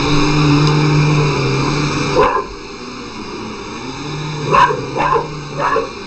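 Upright vacuum cleaner running with a steady hum, its noise dropping away after about two seconds; then a dog barks three times in quick succession near the end.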